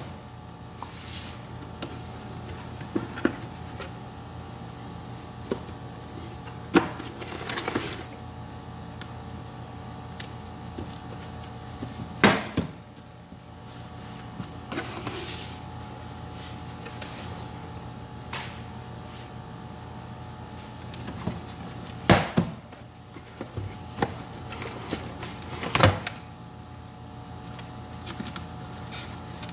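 Thin plastic bag crinkling and rustling as a clear plastic food tray is slid into it and handled, with a few sharp knocks of the tray against the countertop. A steady hum runs underneath.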